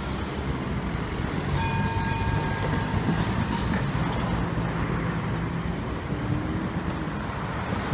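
Road traffic: cars driving over the level crossing with a steady hum of engines and tyres. A brief high tone sounds about one and a half seconds in.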